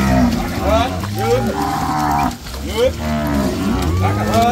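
A herd of Nelore cattle mooing, many calls overlapping and following one another without a break.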